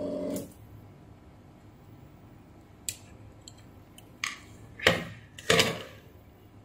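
A steady hum stops about half a second in. Then come a few light clicks and two louder clattering knocks of tools and a removed capacitor being handled and set down on a workbench.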